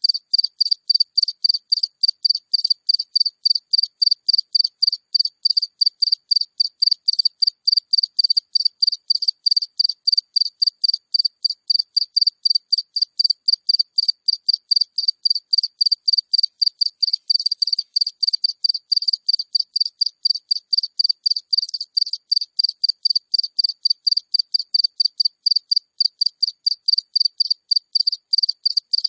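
A single cricket chirping close up: an even, high-pitched chirp repeating steadily at about three to four chirps a second.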